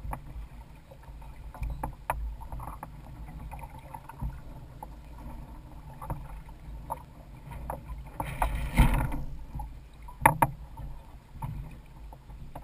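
Water washing along the hulls of a Hobie Adventure Island sailing kayak under way, with a steady low rumble of wind on the microphone. A louder rush comes about two-thirds of the way in, and a couple of sharp knocks follow soon after.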